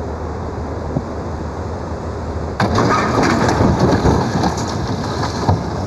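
Loud rush of floodwater with wind noise on the microphone; from about two and a half seconds in it gets louder, with crunching and cracking as a motor boat and its pontoon are driven into a bridge and tip over.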